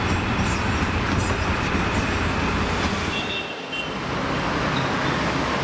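Steady road traffic noise with a low rumble, dropping away briefly about three and a half seconds in.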